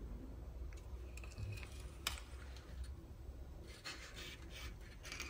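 Faint handling noises of a plug-in circuit board being moved about over the multimeter's card cage: a few light clicks, one sharper click about two seconds in, then a rustling scrape near the end.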